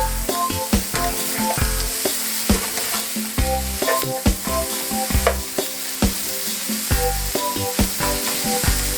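Bacon, onion, bell peppers, bread and ham sizzling steadily in a frying pan, with background music with a steady beat over it.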